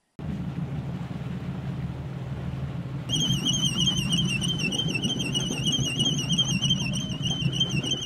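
Boat engine running steadily on deck. About three seconds in, a high warbling whine starts and holds, wobbling in pitch several times a second, from the line hauler on the davit as it brings up a stereo-BRUV.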